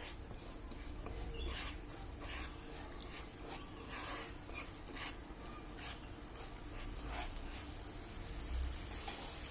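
A spoon scraping and stirring sugar and water in a kadai, in uneven strokes roughly once a second.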